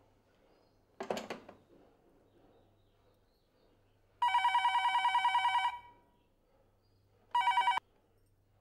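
Cordless telephone ringing with an electronic trill: one ring of about a second and a half, then a second, shorter ring that cuts off suddenly as the call is picked up. A brief burst of noise comes about a second in.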